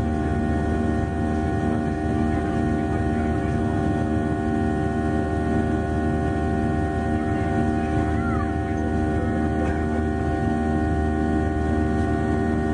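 Jet airliner's engines heard from inside the cabin at climb power just after takeoff: a steady rumble with several steady whining tones laid over it.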